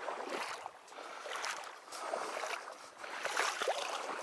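Shallow marsh water being disturbed: irregular sloshing and splashing with rustles, as when moving through a marsh or working in the water.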